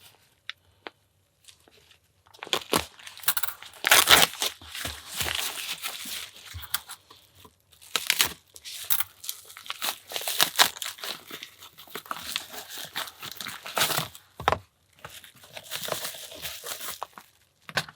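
Parcel packaging being torn and crumpled by hand while a heavily wrapped package is unwrapped: irregular bursts of tearing and rustling, starting about two and a half seconds in.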